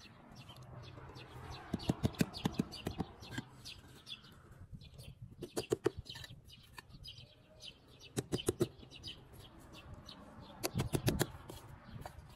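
Short bursts of rapid, sharp taps or clicks, repeated about four times, over a faint background.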